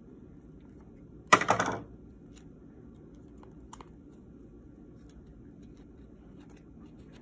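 A pair of scissors set down on a tabletop: a short clatter of several quick sharp clicks about a second and a half in, the loudest sound here. Otherwise faint ticks from handling string and cardboard over a low room hum.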